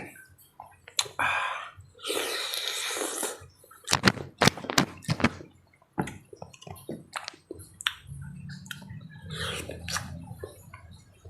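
Wet eating sounds of papaya with Marjan syrup: chewing and slurping, with many sharp clicks and two longer noisy stretches about a second and two seconds in.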